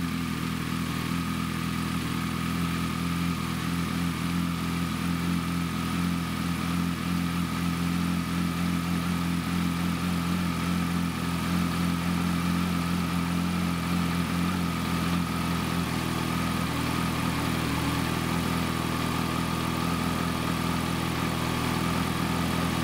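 Kawasaki Concours 14's inline-four engine idling steadily just after a cold start. The ECU-driven cold-idle cam on the throttle bodies holds it at a raised fast idle.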